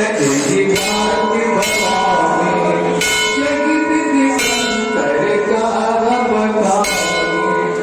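A temple bell is struck about five times at uneven intervals, its tone ringing on between strikes. Under it a devotional song to Ram is being sung.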